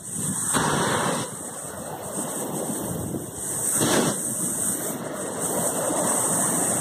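Sea surf washing against the shore with wind buffeting the microphone, swelling louder briefly about half a second in and again about four seconds in.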